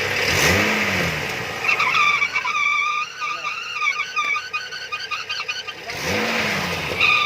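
BMW E71's N55 turbocharged inline-six, revved briefly with a pitch that rises and falls, twice. Between the revs comes a steady, wavering high-pitched squeal lasting about four seconds: the unexplained strange noise.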